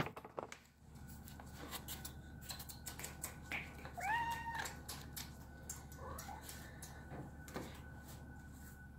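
A house cat meows once, about four seconds in: a short call that rises and then holds steady. Faint rustles and soft knocks sound around it.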